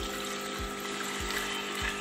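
Water poured in a stream from a pot into a metal pressure cooker, splashing steadily. Background music with a steady low beat plays underneath.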